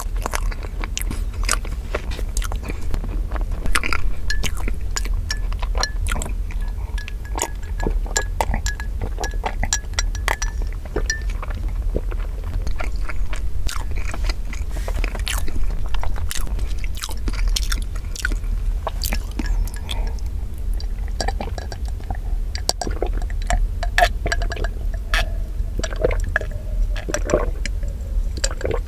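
Close-up wet chewing of cream-filled strawberry crepe cake, with many small mouth clicks and lip smacks over a steady low hum. Near the end, swallowing gulps of milk from a glass.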